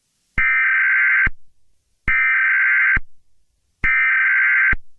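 Emergency Alert System SAME header data bursts: three identical buzzy digital screeches, each just under a second long and about a second apart, the coded header that opens an EAS alert message.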